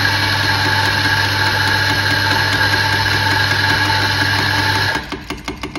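On-demand espresso grinder's motor and burrs running steadily through a timed double dose (set to about 6.2 seconds), stopping about five seconds in. A few light clicks follow.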